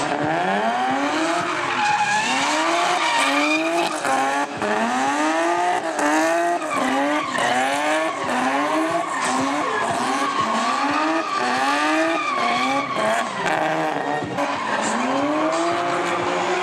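An Infiniti coupe's V6 revving hard during donuts, its pitch climbing and dropping over and over about once a second as the throttle is worked, with the rear tires squealing and skidding the whole time.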